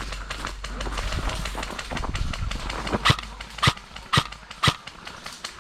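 A few seconds of rustling noise with a low rumble, then four sharp knocks or cracks about two a second.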